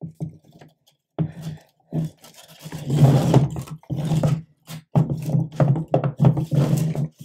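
Hands handling cables and plastic parts, making irregular rustles and knocks in short bursts.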